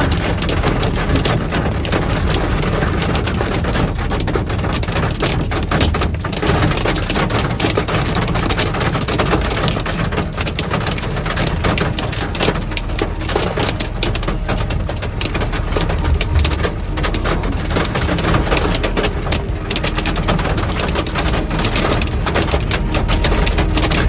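Heavy rain and hail pelting a vehicle: a dense, steady hiss of rain broken by many sharp hits.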